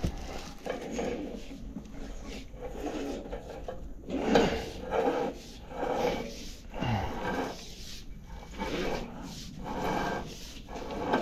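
Steel drain-cleaning spring being pushed by hand up a sewer pipe, scraping and rubbing against the pipe and pit in repeated, irregular strokes about once a second.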